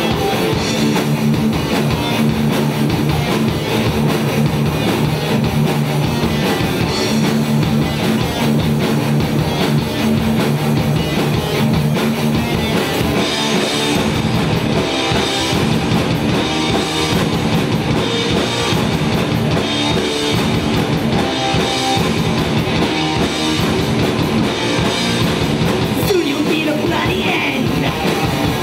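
Live heavy metal band playing loud electric guitars and a drum kit.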